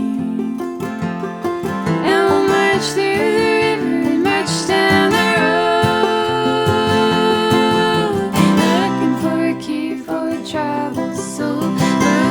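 Background music led by acoustic guitar, playing steadily.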